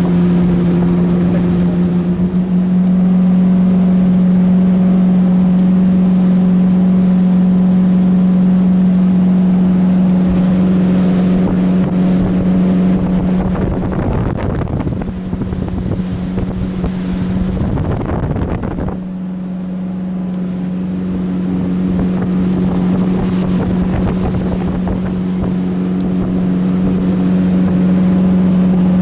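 Motorboat under way, its engine giving a steady hum over rushing wind and water noise. About eighteen seconds in, the engine hum briefly drops away and the sound dips, then it comes back.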